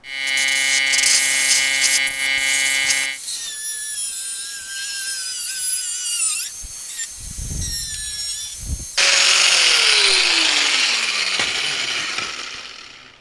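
Abrasive cut-off wheel cutting through the rusted sheet steel of a truck fender, in several short spliced stretches: a steady hum while it spins, then a high whine that wavers and drops in pitch as it bites into the metal. About nine seconds in, a louder hissing stretch starts with a tone falling steadily in pitch, then fades out.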